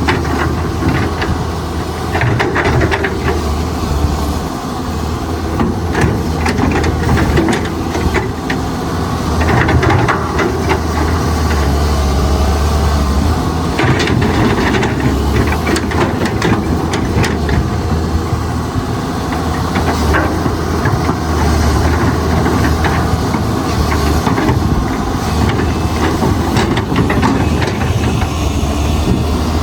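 Caterpillar 320C excavator at work: the diesel engine runs with a steady low drone under hydraulic hiss, with irregular metallic clanks and scrapes throughout.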